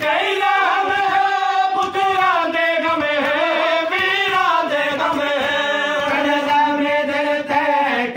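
A voice chanting a devotional recitation in long melodic phrases, its pitch bending up and down with hardly a break.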